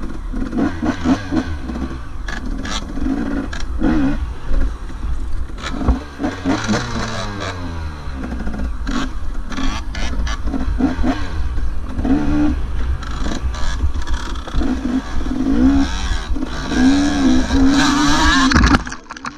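Dirt bike engine heard from on the bike, revving up and falling back again and again as the rider works the throttle and gears over rough trail, with frequent knocks and rattles from the bike over bumps. The throttle drops off briefly near the end.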